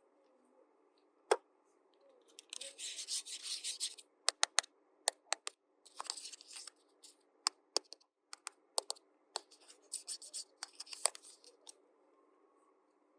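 Small plastic toy parts and packaging handled by hand: a dozen or so sharp clicks and taps, with three bursts of scratchy rustling, the longest about a second and a half.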